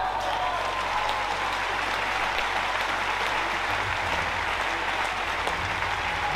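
Arena crowd applauding steadily as a badminton match ends on its final point.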